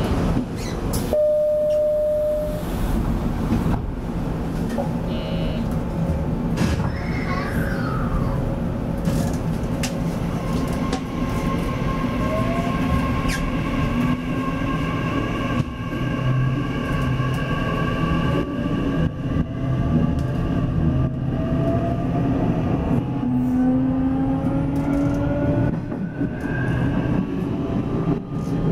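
Nishitetsu 9000 series electric train heard from the driver's cab, pulling away and gathering speed: a steady rumble of running noise, with the traction motors' whine rising slowly in pitch over the second half. A short steady beep sounds about a second in.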